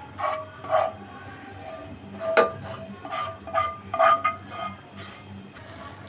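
A plastic spatula scraping thick white sauce out of a nonstick frying pan into a pot of pasta. It makes a string of short squeaky scrapes, with one sharp knock against the pan about two and a half seconds in.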